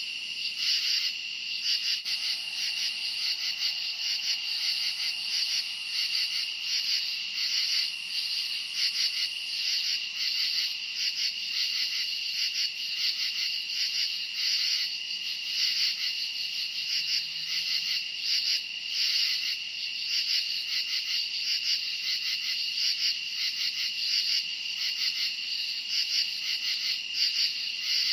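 A dense chorus of crickets chirping without a break: a steady high trill with a quick, uneven pulsing layered over it.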